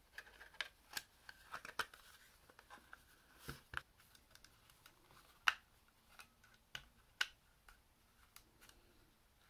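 Back panel of a Sony MZ-N707 MiniDisc Walkman being handled and pressed onto its chassis by hand: scattered faint clicks and snaps, the sharpest about five and a half seconds in.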